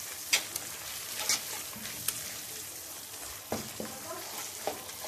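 A thick onion and milk sauce sizzling in a nonstick frying pan as a wooden spatula stirs it, with sharp clicks and scrapes of the spatula on the pan, the loudest about a third of a second in, and a few duller knocks later on.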